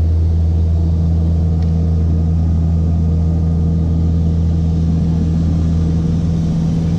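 Steady low hum of an airliner's engines heard from inside the passenger cabin.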